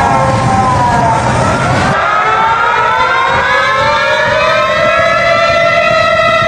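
Warning siren wailing: its pitch falls over the first couple of seconds, then climbs and holds steady. Under it a low rumbling noise stops suddenly about two seconds in.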